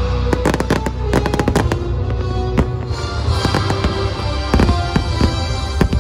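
Fireworks bursting: a rapid string of bangs and crackling pops, densest in the first two seconds and then more scattered, over music.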